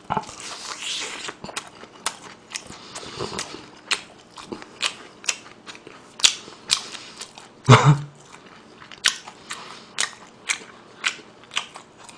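Close-miked biting and chewing of a Kyochon Red fried chicken drumstick: irregular wet, crunchy clicks of jaw and food, about two a second. About eight seconds in comes one louder short sound with a low pitch, a brief vocal noise from the eater.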